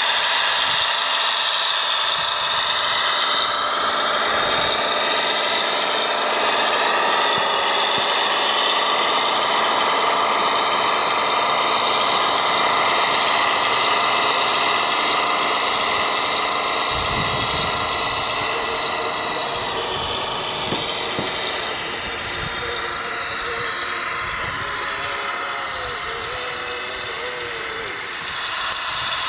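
Radio-controlled model trucks running, with a steady mechanical whine and engine-like idling hum. Low knocks and rumbles come in past the middle.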